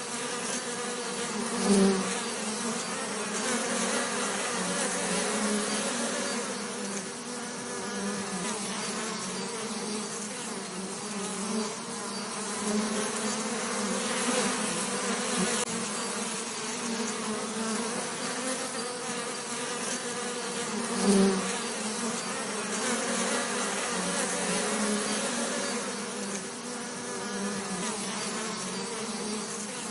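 Bees buzzing in a steady, continuous drone, briefly louder twice, about two seconds in and again about twenty-one seconds in.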